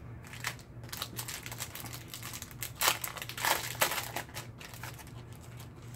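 Foil wrapper of a Yu-Gi-Oh! booster pack crinkling and tearing as it is peeled open by hand, with louder crinkles around the middle.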